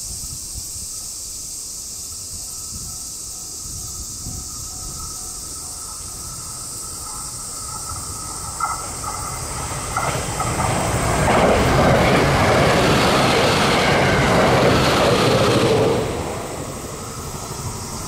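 Electric train passing at speed: a swelling rush of wheels on rail that grows from about eight seconds in, is loudest for several seconds, then falls away sharply. A few sharp wheel clicks come as it draws near.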